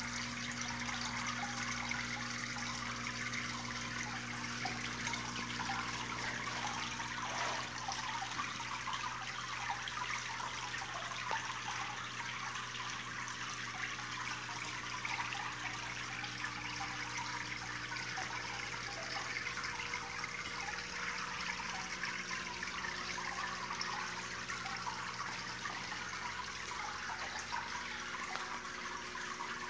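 Water sheeting down the mirror face of a marble wall fountain and falling into its pebble-filled basin: a steady, even trickling splash. A faint low hum runs underneath, shifting in pitch about two-thirds of the way through.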